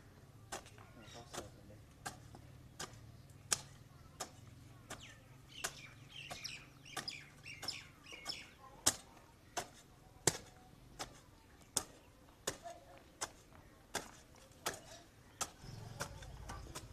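A hand hoe's metal blade striking and breaking up dry garden soil in steady, repeated blows, about one every three-quarters of a second, as the ground is dug over and loosened for planting.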